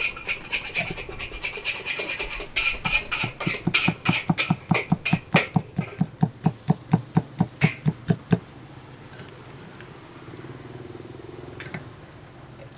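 Kitchen utensil striking rapidly and evenly, about four to five strokes a second, stopping about eight seconds in; a steady low hum carries on after it.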